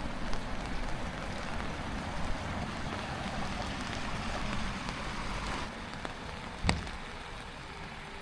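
Steady rain falling, an even hiss of drops that eases a little about two-thirds of the way through, with one sharp knock shortly after.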